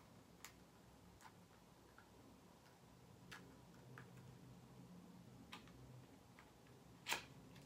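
Faint, irregular clicks and taps of a small product box being opened by hand, with one sharper click near the end.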